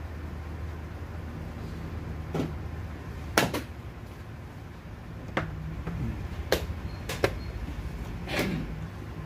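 Sharp wooden clicks and taps from rapid chess play, pieces set down on boards and chess clock buttons pressed, about eight in all, some in quick pairs, over a steady low hum.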